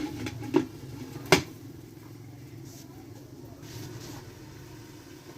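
Three sharp metal clinks of cookware against a metal cooking pot in the first second and a half, then a faint, steady low background.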